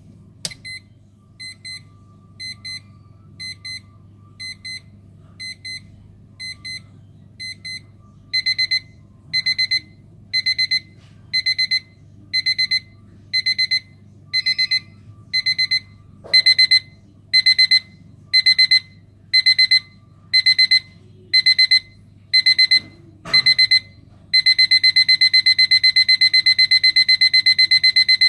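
Crocodile CAL720 alarm clock's electronic beeper sounding its escalating alarm. It starts with soft, short double beeps about once a second. Around 8 s in it switches to louder single beeps. Near the end it breaks into a fast, almost continuous beeping.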